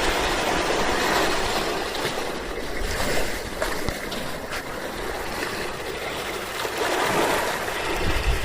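Small waves lapping at the shore: a steady wash of surf that swells and eases, fuller near the start and again near the end.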